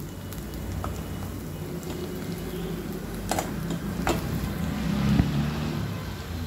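Chopped onions and green chillies sautéing in a stainless steel kadai: a faint sizzle while a steel slotted spoon stirs and scrapes the pan, with two sharp knocks of spoon on steel about a second apart in the middle. A steady low rumble runs underneath.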